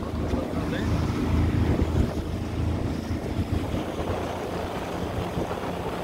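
A motorboat's engine running steadily, with wind buffeting the microphone.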